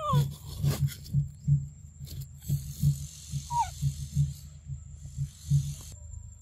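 A young macaque gives two short falling squeaks, one right at the start and one about three and a half seconds in, over a rhythmic run of low dull thumps about three a second.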